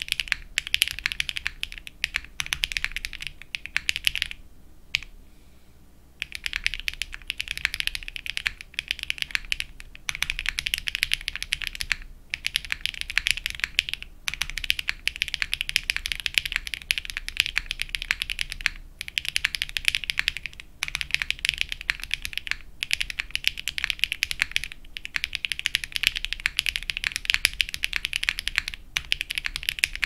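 Fast continuous typing on an aluminium KalamKorn gummy-o-ring-mounted mechanical keyboard with HMX Sunset Gleam switches: dense, clacky, fairly high-pitched keystrokes. The typing pauses for about two seconds around four seconds in, with brief breaks every couple of seconds.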